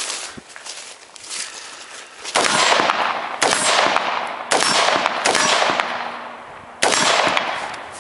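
AR-15 rifle fired five times at an uneven pace, roughly a second apart. Each shot is sharp and rings out as it fades, after about two seconds of quieter handling and movement.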